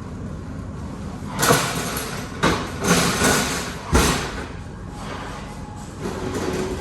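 A run of loud rattling bangs and thuds, about four in three seconds, over a steady low hum.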